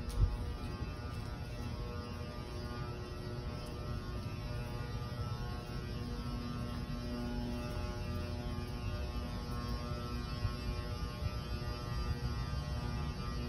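Steady building hum: a low rumble with several held tones that swell and fade, and a single thump right at the start.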